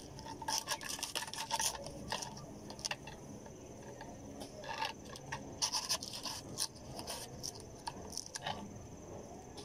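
Kitchen knife shaving and scraping at the fibrous husk of a tender coconut: runs of quick rasping strokes about a second in, again after the middle, and once more near the end. A steady high cricket drone runs underneath.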